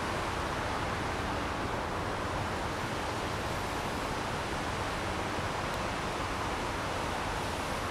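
A steady, even rushing hiss with no distinct clicks, creaks or other events.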